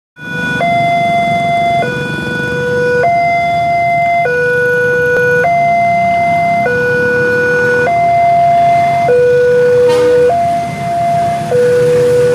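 Railway level-crossing alarm sounding from the loudspeaker on the crossing signal. It is a loud two-tone electronic warning that alternates between a lower and a higher tone about every 1.2 seconds, warning that a train is approaching. A steady low rumble runs beneath it, and there is a single sharp click about ten seconds in.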